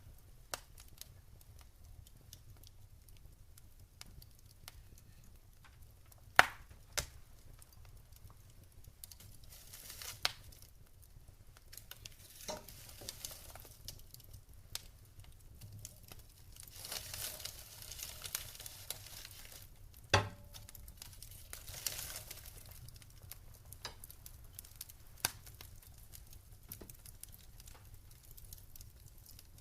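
Wood fire crackling, with scattered sharp pops; two louder pops come about six seconds in and about twenty seconds in. Soft hissing rises and falls in stretches between them.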